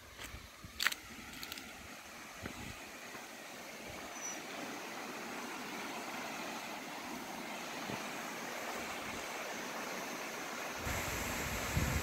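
Steady rushing of a distant waterfall, slowly building, with a sharp click about a second in. Wind buffeting the microphone comes in near the end.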